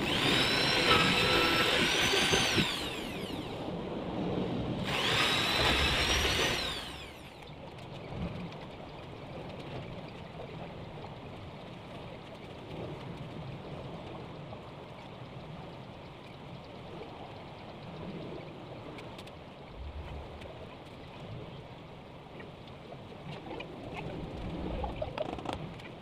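Corded electric drill run in two short bursts, drilling into pallet-wood boards: each time the motor whine climbs as it starts, holds, then winds down. After that, only faint knocks and handling of the wood.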